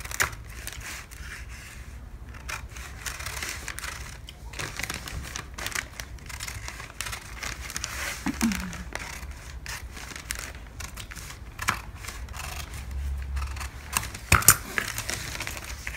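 Large fabric shears cutting through dotted pattern paper: irregular snips of the blades with the paper crinkling as it is fed and turned, and a sharper click near the end.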